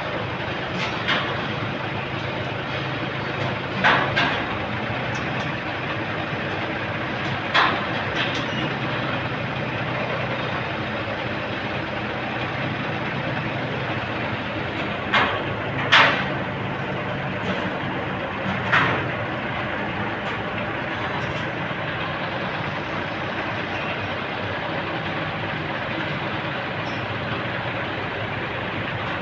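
Truck engine running steadily while the truck-mounted crane hoists a heavy load, with several short, sharp knocks or clanks scattered through; the loudest comes about two-thirds of the way in.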